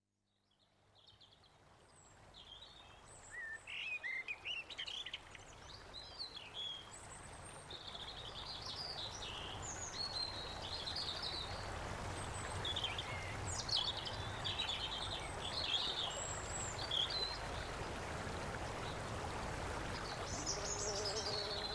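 Several songbirds chirping and trilling over a steady outdoor noise bed, fading up from silence over the first several seconds. A low steady tone joins near the end.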